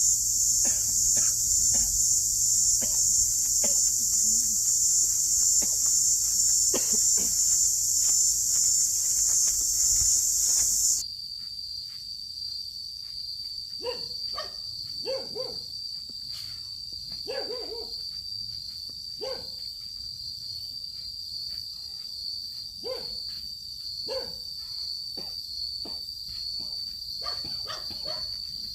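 Loud, steady, high-pitched insect chorus. About eleven seconds in it cuts off abruptly to a quieter steady insect trill, with short animal calls every second or two over it.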